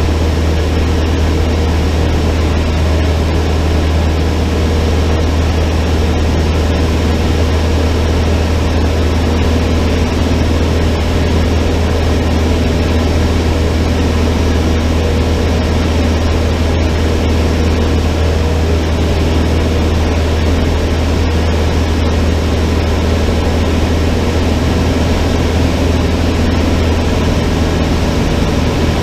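Cessna 152's four-cylinder Lycoming O-235 engine and propeller running steadily, a loud, even drone that holds the same pitch throughout.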